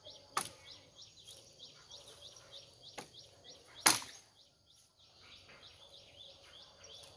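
Machete chopping into bamboo low at its base: two sharp cracking strikes, one near the start and a louder one about four seconds in, with a lighter knock between. Rapid repeated chirping runs on behind.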